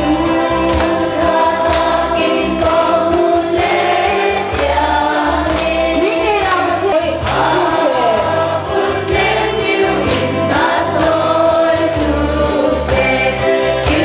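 A large congregation singing a hymn together, many voices in unison over a steady beat. The singing stops suddenly right at the end.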